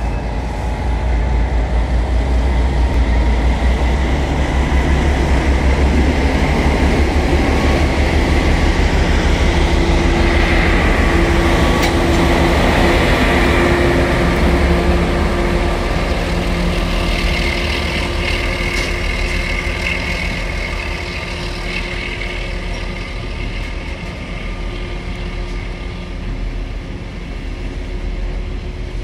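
DB class 233 diesel locomotive pulling away with a freight train, its diesel engine rumbling loudly as it passes close by. In the second half the engine sound eases and the hopper wagons roll past on the rails.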